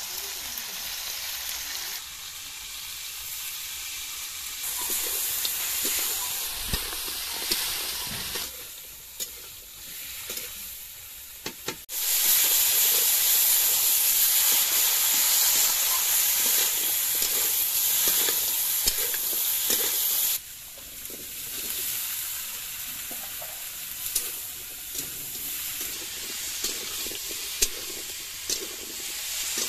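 Goat meat and masala sizzling in hot oil in an iron kadai, with a metal spatula scraping and clicking against the pan as it is stirred. For several seconds in the middle the sizzle becomes a much louder hiss, then drops off suddenly.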